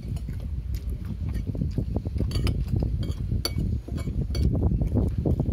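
People eating from ceramic plates close to the microphone: a spoon clinking and scraping against the plate several times, with chewing and lip-smacking.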